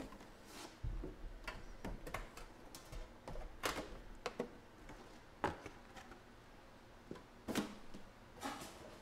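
Hands handling and moving a Panini Immaculate Baseball hobby box on a table: about ten scattered taps, knocks and scrapes, the sharpest about five and a half and seven and a half seconds in.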